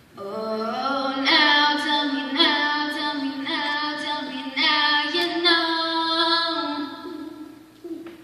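Girl singing solo into a microphone: a phrase of long held notes, the first gliding upward, trailing off near the end.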